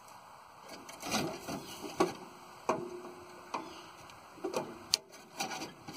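Irregular clicks and knocks of hand tools and car parts being handled, about seven in all, a couple of them ringing briefly.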